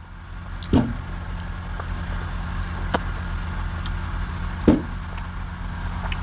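A steady low engine hum, with a sharp click near the middle and a couple of brief short sounds over it.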